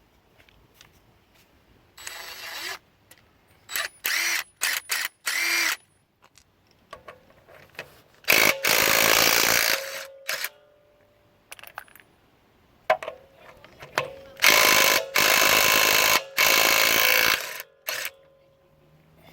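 DeWalt DCF880 20V MAX cordless 1/2-inch impact wrench running in bursts: a few short trigger pulls in the first six seconds, then two longer runs, about a second and a half and then about three seconds long.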